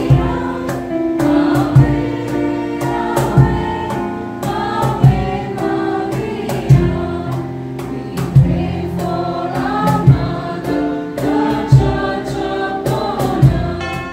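A group singing a hymn with digital piano accompaniment, over a steady beat with a strong stroke about every 1.7 seconds.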